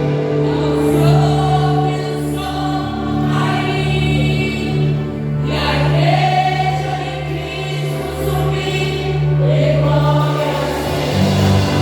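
Women's choir singing a gospel hymn, voices rising and swelling in long sung phrases over steady held low notes.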